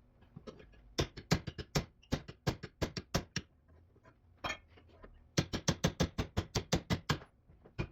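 Hammer striking a 1968 Firebird upper door hinge in quick blows, about five a second, in two runs with a pause of about two seconds between them.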